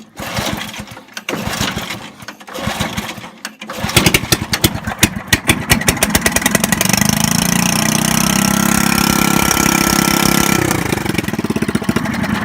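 Cold start of a 5-horsepower Briggs & Stratton single-cylinder mower engine on choke after sitting all winter: two pulls on the recoil starter, then it catches about four seconds in and runs fast and steady. Near the end the engine speed drops and the firing slows.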